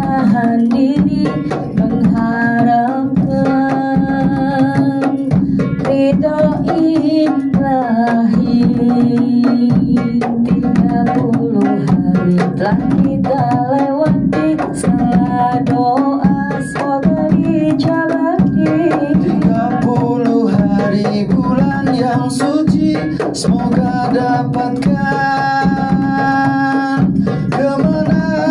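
Indonesian Eid song sung by a group of voices over a banjari ensemble of rebana frame drums, which keep up a steady, busy pattern of hand strokes.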